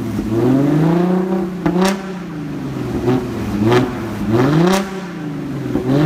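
Audi A7 3.0T's supercharged V6 free-revving through an Armytrix cat-back valvetronic exhaust. One long rev climbs for about a second and a half, then about four quicker blips follow, each dropping back toward idle, with a sharp crack at the top of several.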